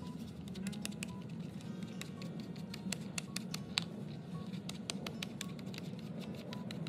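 Quiet background music under irregular light clicks and scratches as a glue brush spreads contact cement over the rough back of leather pieces.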